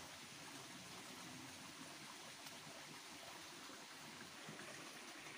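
Faint, steady rush of water flowing in a small ditch stream.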